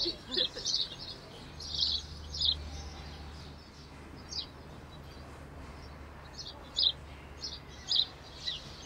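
Small birds chirping: short, high chirps in irregular clusters. A low steady hum starts about a second and a half in.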